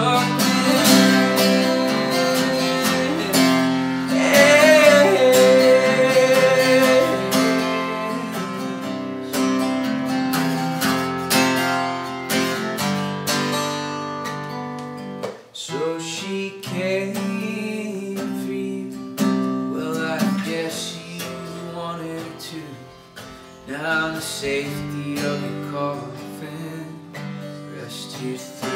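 Solo acoustic guitar strummed and picked through an instrumental passage of a folk song, with a wordless held vocal note that wavers about four seconds in.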